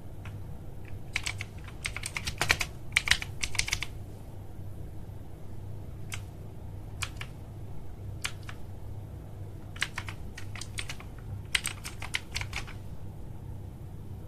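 Keys clicking on a OneUp mechanical keyboard: quick flurries of keystrokes with single presses between them.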